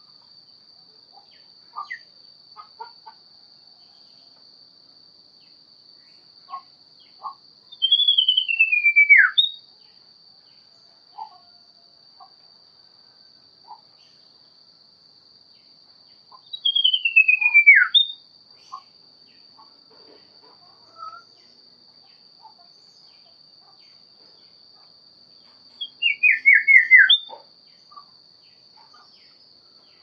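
Common iora (cipoh) singing: three loud, drawn-out whistles about eight to nine seconds apart, each sliding down in pitch over a second or so and ending in a short high note, the last one broken into a wavering trill. Faint short chips and clicks fall between the songs.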